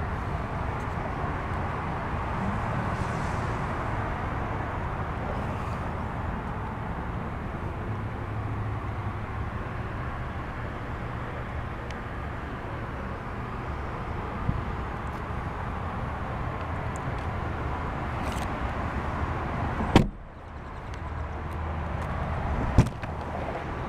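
Steady outdoor background rush, broken about 20 seconds in by a Jeep Wrangler door shutting with a sharp thump. Near the end comes the click of the door's exterior handle and latch.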